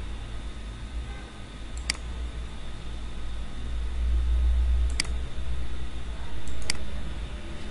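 Three sharp single clicks of a computer mouse button, a second or more apart, over a steady low hum and hiss.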